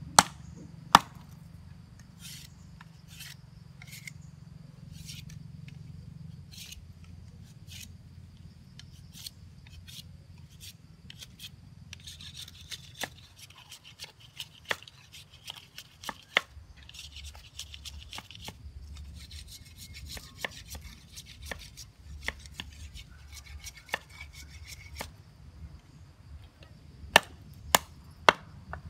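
Machete blade chopping and shaving a thin bamboo stick on a wooden block. Irregular sharp knocks are loudest twice at the start and three times near the end, with spells of scraping strokes in the middle.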